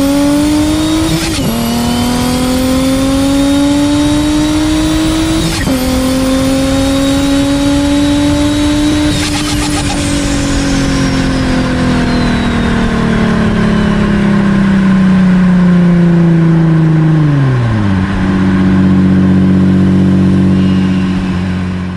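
Infiniti G35's 3.5-litre V6 with a rear-mounted turbo, pulling hard through three gears with a high turbo whistle rising over each pull and a short burst of noise at each shift, where no blow-off valve is fitted. The revs then fall away slowly off the throttle as the whistle winds down, and the engine drops to a steady idle near the end.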